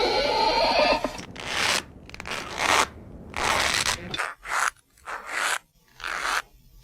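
A hand-made Foley sound effect: about a second of rough scraping noise, then about six short, separate scraping strokes with pauses between them.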